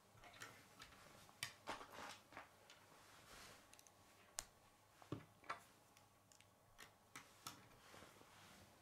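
Faint, irregular clicks of plastic K'nex rods and connectors being handled and snapped together.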